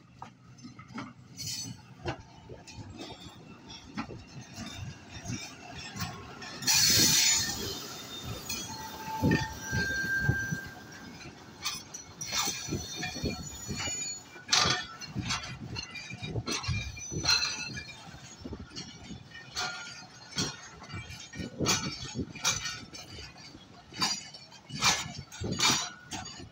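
Freight train rolling past at close range: the wheels of covered hopper wagons knock and clank irregularly over the rail joints. A loud rushing burst comes about seven seconds in, and brief wheel squeals follow a few seconds later.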